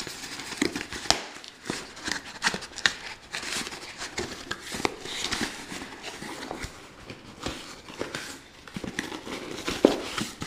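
Cardboard box being handled and its flaps opened: an irregular run of rustles, scrapes and small knocks of cardboard against cardboard.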